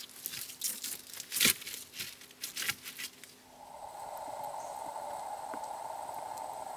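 Irregular crackling, rustling and sharp snaps of dry twigs and wood being handled beside a campfire. About halfway through these stop and a steady buzzing hum takes over.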